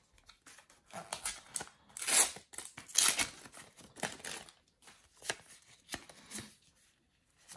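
A Panini sticker packet being torn open by hand, its paper-foil wrapper rustling and crinkling in several bursts, followed by the stiff stickers being shuffled and flicked through with light clicks and taps.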